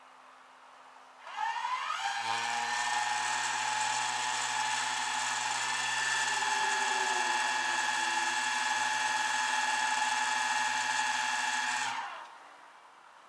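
A motor's steady whine that spins up over about half a second, runs evenly for about ten seconds, then winds down and stops.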